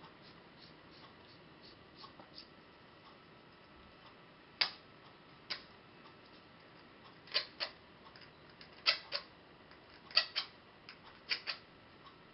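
Light metallic clicks and clinks of steel nuts and washers being handled and fitted onto a threaded steel rod, often in quick pairs, every second or so from about a third of the way in.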